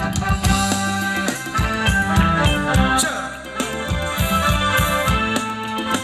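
Live band playing Thai ramwong dance music: a steady drum beat under a sustained melody.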